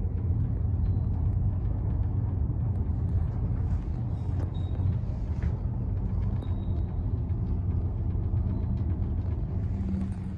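Otis traction lift car travelling between floors, heard from inside the cab as a steady low rumble. A faint steady hum comes in near the end as the car nears its stop.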